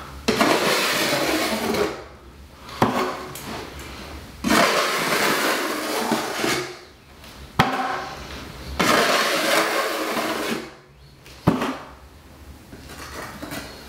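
A brush scraping along a cement board shower curb, spreading liquid waterproofing membrane. It comes in three long rasping strokes of about two seconds each, with four sharp knocks of the tool between them.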